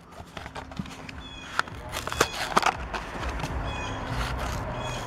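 Plastic blister pack crackling and clicking as it is pried off a toy car's cardboard card, the sharpest cracks about two seconds in. An animal calls faintly in the background about a second in and again near four seconds.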